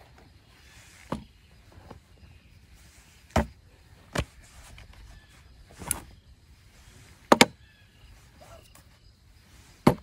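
Pocket items (wallet, phone in its case, metal flashlight) being set down one at a time on a wooden slatted table, making about six separate knocks and clacks, with a quick double knock about seven seconds in.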